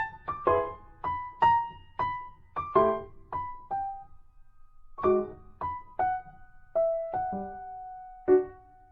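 A simple piano-like keyboard melody of single struck notes, about two a second, each ringing briefly and fading, with a short pause about four seconds in.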